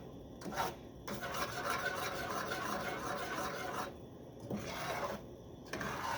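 A spoon scraping and rubbing round the bottom of a saucepan while stirring a gritty mixture of sugar, melting butter and evaporated milk for fudge, with a couple of brief pauses in the second half.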